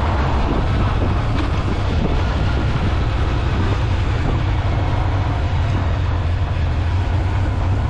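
Honda Nighthawk 750's air-cooled inline-four running steadily at cruising speed, with wind rushing over the microphone.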